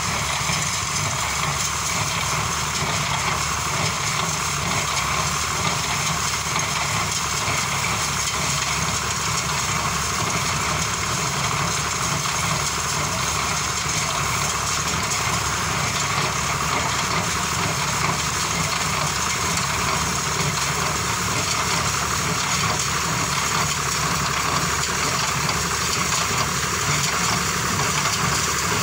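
Tractor engine running steadily while it pulls a baler picking up dry sugarcane leaves, the machinery making a continuous, even noise with no breaks.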